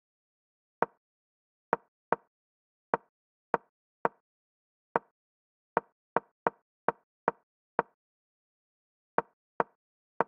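Digital chess-board move sound, a short wooden click for each piece placed, about sixteen times at an uneven, often quick pace.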